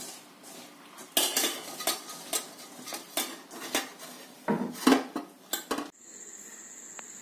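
Metal kitchen vessels and utensils clinking and clattering: about a dozen sharp strikes over several seconds. Near the end they stop and a steady faint hiss with a thin high whine takes over.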